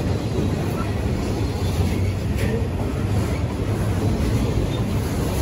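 Autorack freight cars rolling past close by: a steady rumble of steel wheels on the rails.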